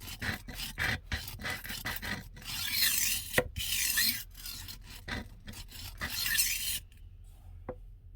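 HORL 2 rolling knife sharpener's grinding disc rasping against a steel knife blade in repeated back-and-forth strokes, stopping about seven seconds in. The grinding takes steel off the edge and leaves filings on the blade.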